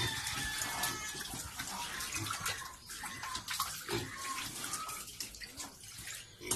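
Piglets scuffling and feeding on a wet concrete pen floor: a busy, wet splashing and clicking of trotters and snouts, with a few brief squeaks and a low thump about four seconds in.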